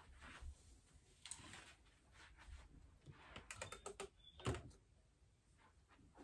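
Faint clicks and light knocks of household objects being handled and set down, with a quick run of clicks about three and a half seconds in and the loudest knock just after.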